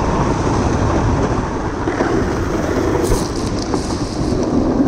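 Orange plastic sled sliding fast down a packed, grooved snow run: a steady, rough rumble and scrape of the hull on the snow. Short crackles of spray are heard about three seconds in, as snow is kicked up around the sled.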